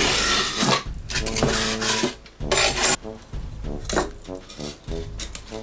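Utility knife blade dragged through extruded polystyrene (Styrofoam) foam board along a steel ruler, cut in several passes: a few scratchy strokes with squeaky tones between them.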